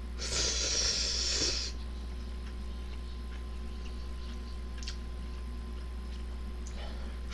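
Ramyeon noodles slurped into the mouth once, a hissing suck lasting about a second and a half near the start, followed by faint small clicks over a low steady hum.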